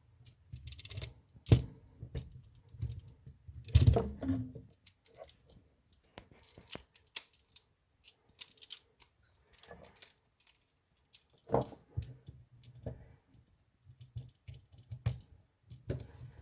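Irregular clicks, taps and knocks of a GFCI outlet and its stiff wiring being handled and pushed into a wall electrical box, with a few louder knocks scattered through.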